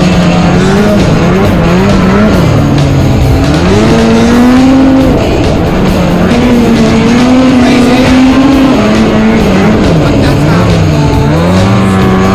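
Polaris snowmobile's two-stroke engine revving, its pitch rising and falling again and again as the throttle is worked, with music playing along.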